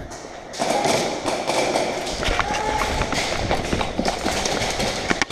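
Steady rustling noise with many sharp clicks and thumps, starting about half a second in, typical of a player moving in airsoft gear during a game.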